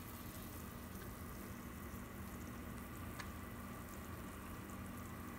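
Hot water simmering quietly in a pan on the stove: a faint, steady bubbling hiss over a low steady hum, with a light tick about three seconds in.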